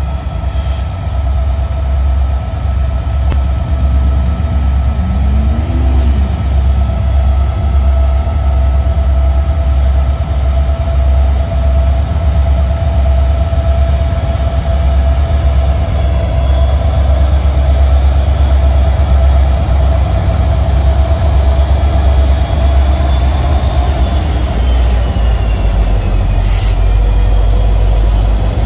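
Norfolk Southern freight train led by EMD diesel locomotives (SD40E, SD40-2 and GP60) approaching and passing close by: a heavy, steady engine rumble that grows louder as the locomotives near, with a steady high whine above it.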